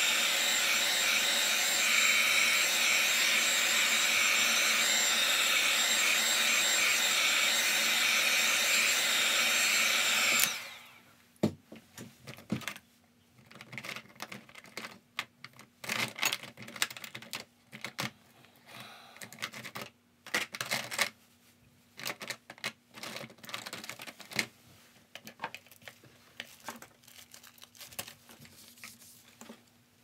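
Hair dryer blowing steadily, drying the wet watercolour paint, then switched off abruptly about ten seconds in. Scattered light clicks and taps follow.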